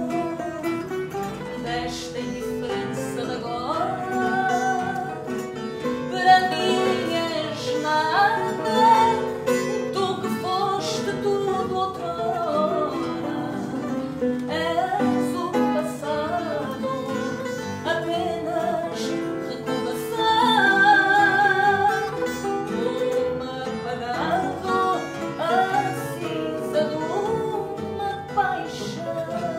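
Live fado: a woman singing a slow melody with vibrato, accompanied by Portuguese guitar, classical guitar and bass.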